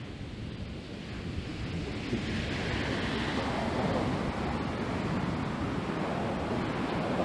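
Wind rushing over the microphone mixed with the wash of water, a steady roar of noise that swells louder about two seconds in.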